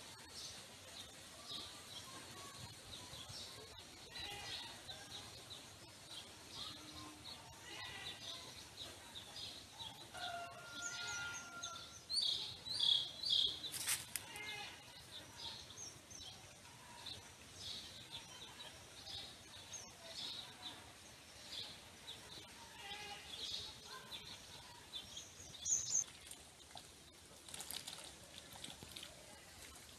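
Small birds chirping and calling over and over, short high-pitched notes scattered throughout, with louder bursts of calls about twelve seconds in and again near the end.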